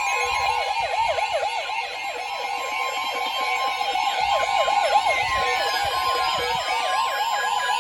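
Weather radios alerting to a severe thunderstorm warning. The steady NOAA Weather Radio attention tone sounds together with a rapidly warbling, siren-like alarm that sweeps up and down several times a second.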